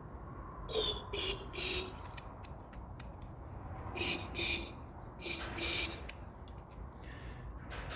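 Aerosol can of GT85 penetrating lubricant sprayed in short squirts, about seven hissy bursts in three groups (three, then two, then two), to free off a seized compressor cylinder.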